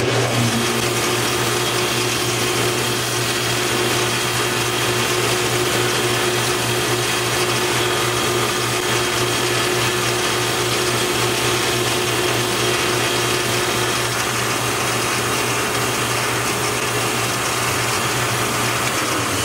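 Small metal lathe running steadily at speed, its motor and drive giving a constant hum and whine, while a turning tool takes a light finishing cut on a small brass rod. A steady higher tone in the whine fades out about two-thirds of the way through.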